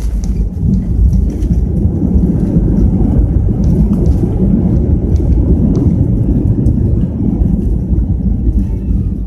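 Airliner cabin during landing: a loud, steady rumble of the engines and the wheels rolling on the runway.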